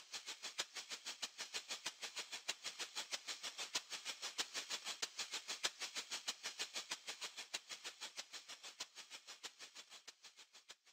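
A fast, even run of short hissy clicks, about seven a second, like a shaker or hi-hat loop. It fades away over the last few seconds and stops.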